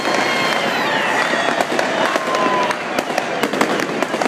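Many consumer fireworks and firecrackers going off at once: a dense, continuous crackle studded with sharp bangs, with several whistling fireworks whose tones glide slowly down.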